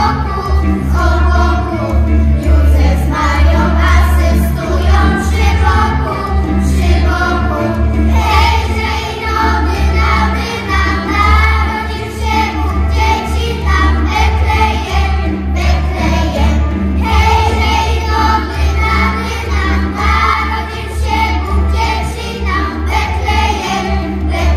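A children's parish choir (schola) singing a Polish Christmas carol in unison melody lines, over a steady low bass accompaniment.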